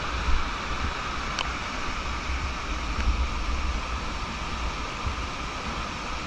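Monsoon-swollen stream rushing hard over rock, a steady loud roar of fast water, with a low rumble underneath.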